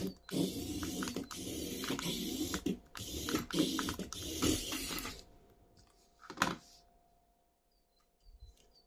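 Rattling, ratcheting mechanical noise from handling a toy: several bursts over about five seconds, then one more short burst and a faint steady tone.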